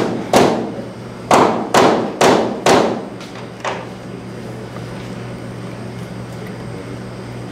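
Sharp thumps on a cutting board, six in the first three seconds and one more just before four seconds: roasted whole spices being smashed open before they go into the stock pot. A steady low hum runs throughout.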